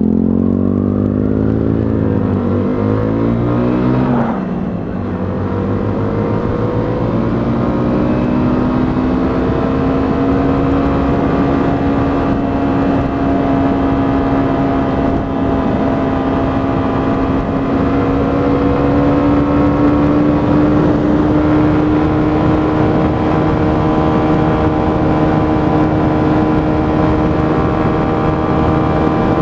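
A 125cc motorcycle engine pulling away with its pitch rising, a brief drop about four seconds in as it changes gear, then climbing more slowly to a steady cruising pitch over a constant rush of wind and road noise.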